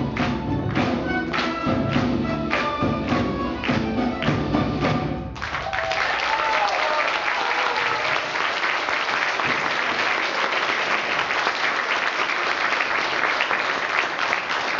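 A children's ensemble of balalaikas and other plucked folk instruments playing a piece with strong, evenly spaced strokes, which breaks off about five seconds in; the audience then applauds steadily.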